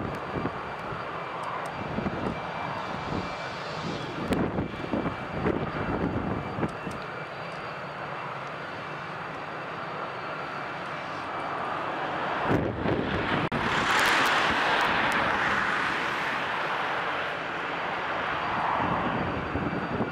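Tupolev Tu-134A-3 jet airliner during engine start-up: a steady high whine over a rushing noise, which swells louder and brighter a little past halfway.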